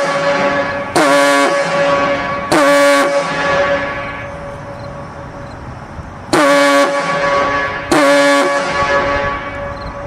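Diaphone fog signal sounding deep, loud blasts in two pairs, about a second and a half apart within each pair. Each blast starts suddenly, lasts about half a second and leaves a long echo.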